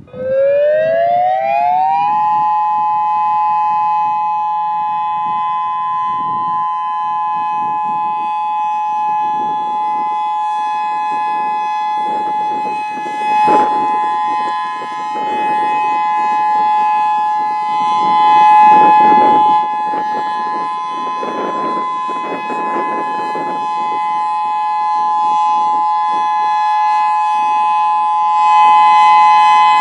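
Federal Signal EOWS 612 electronic tornado siren sounding its steady Alert signal. The tone glides up over about two seconds, then holds a steady pitch made of two close notes.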